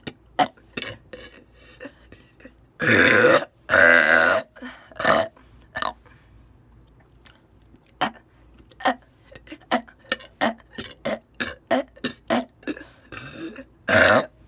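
A woman belching loudly: two long burps in quick succession about three seconds in, and another starting near the end. Many short, sharp mouth clicks come between them.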